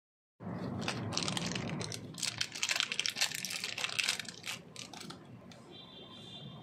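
Plastic wrapper on a chocolate lollipop crinkling as it is peeled off by hand: a dense run of crackles for about four seconds that then thins out.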